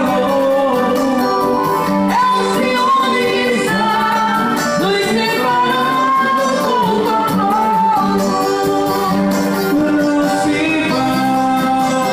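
A bolero performed live by a singer with a band, the voice holding long, bending notes over the accompaniment.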